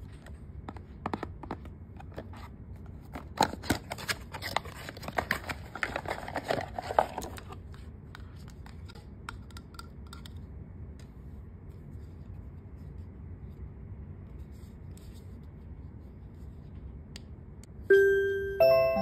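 A boxed portable white-noise machine being unpacked by hand: crinkly scraping, tapping and rustling of the packaging for the first several seconds, then only light handling. About a second before the end, the sound machine starts playing a bright chime-like melody of single stepping notes, like a music box or glockenspiel lullaby.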